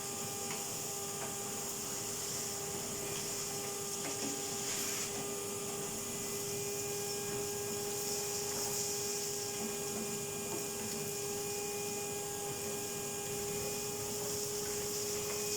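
Henry canister vacuum cleaner running steadily, its motor giving a constant whine over a hiss of suction as it vacuums out a wood burner.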